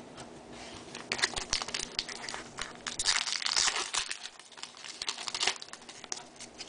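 Foil wrapper of a trading card pack crinkling as it is torn open and handled, in irregular crackles that are loudest about halfway through.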